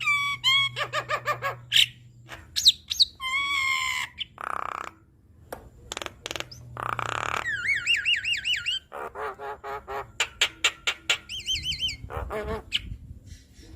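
Javan myna singing a varied song: harsh squawks alternate with gliding whistles, fast rattling runs of notes and wavering trills.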